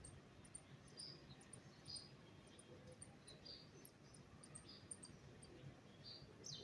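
Faint, scattered short high chirps of small birds, over a quick, even run of tiny high ticks.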